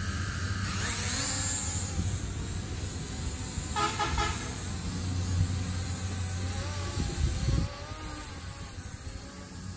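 Small folding quadcopter's propellers spinning up with a rising whine about a second in as it lifts off, then buzzing steadily in flight, with wind rumbling on the microphone. A brief pulsing horn-like tone sounds about four seconds in.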